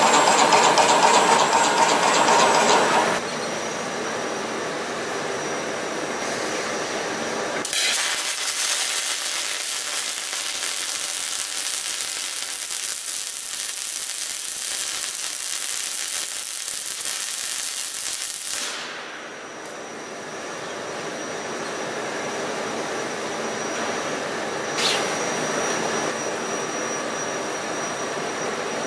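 Robotic arc welding on a Yaskawa Motoman cell. For about ten seconds in the middle, the welding arc hisses and crackles steadily while sparks spray. Before it there is a loud machine whir lasting about three seconds, and after it a quieter steady hum with a single click.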